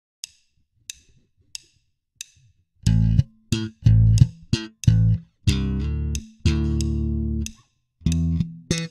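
Four evenly spaced count-in clicks at 90 BPM, then a Fender electric bass played slap style in a double-stop line: short snapped two-note chords and two held ones. About 8 seconds in the same line starts again at a faster 120 BPM.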